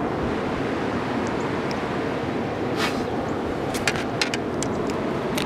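Steady rushing outdoor background noise, with a few light clicks and knocks around the middle as the camera is handled in the boat.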